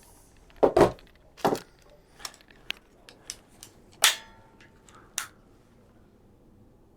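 A handful of sharp clicks and clacks of small hardware being handled: the kit's screws and drywall anchors. One knock about four seconds in carries a short metallic ring.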